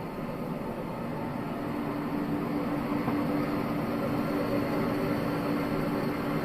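Old bandsaw sawmill running with a steady mechanical hum; about one and a half seconds in a steady tone joins it and the sound grows slightly louder.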